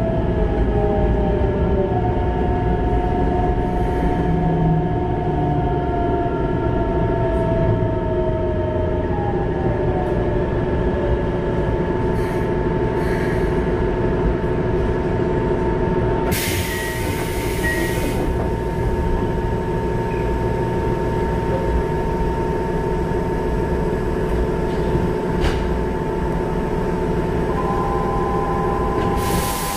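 Keikyu 1500-series train with Mitsubishi GTO-VVVF control, heard from inside the car as it brakes to a stop. The inverter whine falls in pitch over the first several seconds, over steady running rumble. About halfway through comes a burst of compressed-air hiss, and another near the end.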